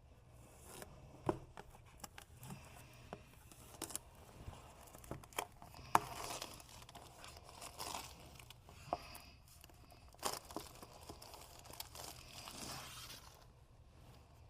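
Product packaging being opened by hand: wrapping tearing and crinkling, with scattered clicks and taps of the box being handled.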